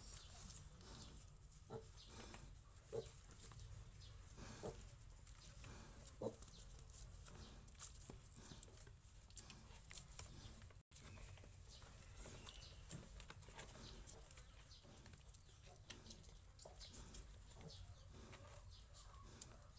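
Faint farmyard animal sounds: short, low calls every second or two over a steady hiss, with scattered soft clicks. The sound cuts out for an instant about halfway through.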